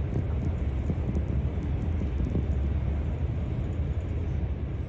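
Haramain high-speed train running at speed, heard from inside the passenger cabin: a steady low rumble.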